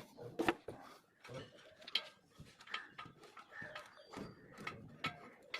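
Faint, scattered metallic clicks and knocks of hand work under the bonnet: a missing bolt being fitted with tools, engine off.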